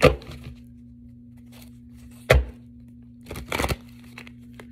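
A tarot deck being shuffled by hand: a snap of cards at the start, a sharp slap about two seconds in, and a short rustling riffle near the end, over a steady low hum.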